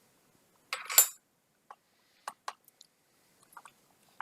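Laptop parts being handled during disassembly: a short crinkly rustle about a second in, then a few light clicks and taps.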